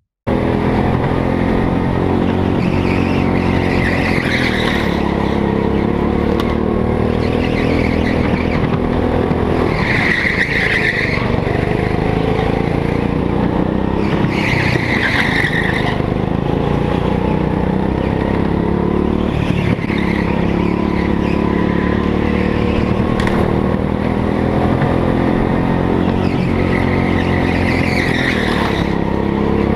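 Go-kart engine running hard under the onboard camera, its pitch rising and falling with the throttle through the corners, with short bursts of tyre squeal several times as the kart slides.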